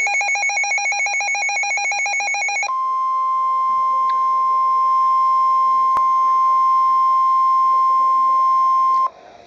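Emergency Alert System signal. For nearly three seconds a rapid warbling electronic data signal plays (the SAME header). It is followed by a steady single-pitched alert tone near 1 kHz, the 1050 Hz NOAA Weather Radio warning alarm tone, which lasts about six seconds and cuts off abruptly near the end, with one sharp click about six seconds in.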